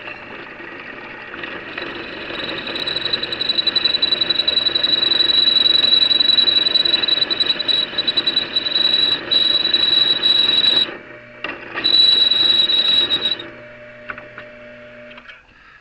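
Belt-driven drill press running under load while drilling a 1/2-inch hole, its motor humming steadily. A loud high-pitched squeal sets in a few seconds in, drops out briefly and returns, then stops, and the machine winds down near the end. The squeal is the sign of dry, slipping drive belts, which the operator decides need belt conditioner.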